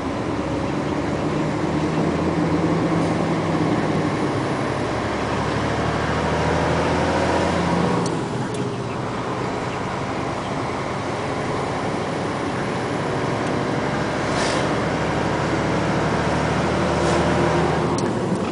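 Truck's diesel engine and road noise heard from inside the cab while driving, a steady drone. The engine note drops away briefly about eight seconds in and again near the end, as when the throttle is let off for a gear change.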